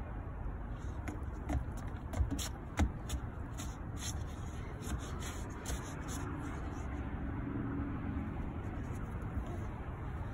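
A few light knocks and shuffles of a small child's sneakers on a playground deck, the sharpest between about one and a half and three seconds in, over a steady low outdoor rumble.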